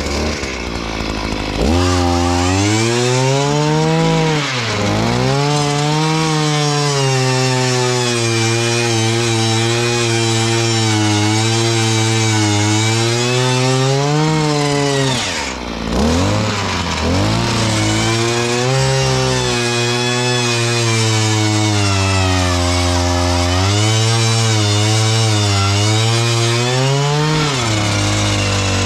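Earthquake gas post hole auger's two-stroke engine running hard as the bit drills into very hard, packed ground. The engine note sags and picks back up several times, dropping deepest about halfway through.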